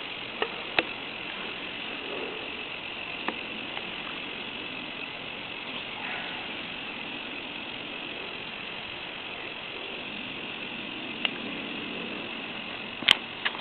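K'nex solar car's small electric motor and plastic gears running with a steady whir, with a few sharp clicks, the loudest near the end.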